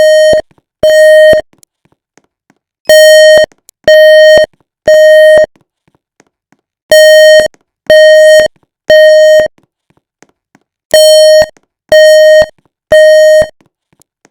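Building fire alarm sounding its evacuation tone in the temporal-three pattern: three steady, shrill half-second beeps, a pause of about one and a half seconds, then three more, repeating. Each beep is one loud fixed pitch with a buzzy edge.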